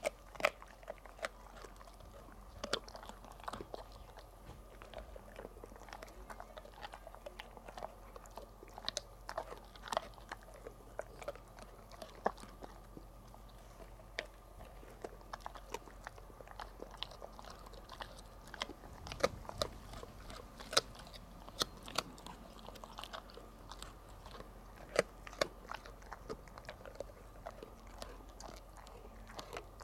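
Golden retriever chewing a pig ear: irregular sharp crunches and cracks as its teeth work through the dried ear.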